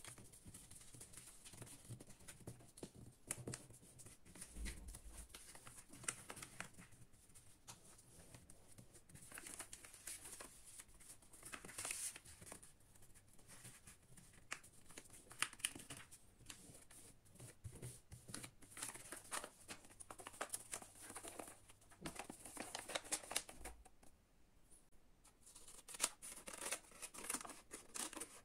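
Sheet of origami paper rustling and crinkling as hands fold and press creases into it, with scattered soft clicks. Near the end, scissors cutting through the folded paper.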